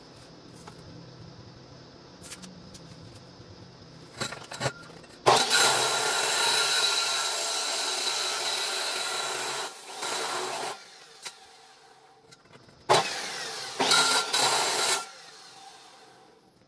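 Angle grinder with a cut-off wheel cutting through a steel axle tube. After a few short starts, it cuts steadily with a high whine for about five seconds, stops, then makes another cut of about two seconds near the end.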